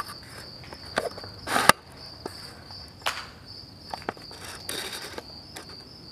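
A steady high buzz of insects, with footsteps and a few short sharp knocks over it, the loudest about a second and a half in.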